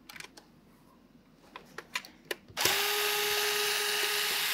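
A small electric screwdriver runs steadily for about two seconds, backing a screw out of a 3D-printed plastic part, then spins down. Before it start there are a few light clicks of handling.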